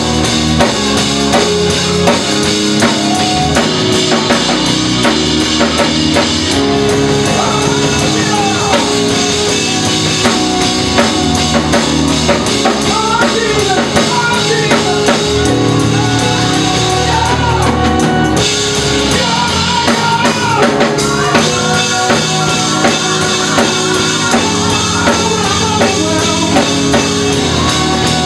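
Live church worship music: a group of singers with keyboard and drums, sung lines rising and falling over held keyboard chords and a steady drum beat.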